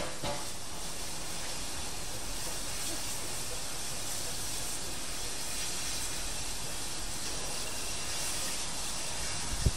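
Steady hiss of steam from a Danish F class 0-6-0T tank locomotive, with a single low thump near the end.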